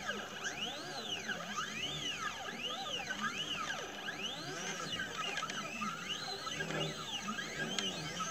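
Stepper motors of a CNC 2418 laser engraver whining as the laser head traces an engraving pattern, the pitch rising and falling over and over as the axes speed up and slow down on each short move.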